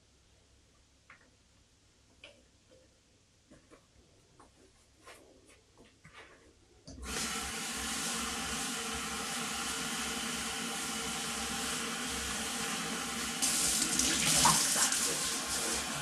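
A few faint handling taps, then about seven seconds in a kitchen faucet comes on and water runs steadily into a clear plastic bowl held in a stainless steel sink as it is rinsed. The splash gets louder and brighter a little past the halfway point.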